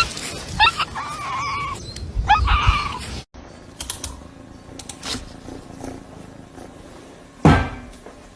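Short, pitched animal calls for the first three seconds, cut off abruptly. After the cut there is a quieter stretch with a single loud thump about seven and a half seconds in.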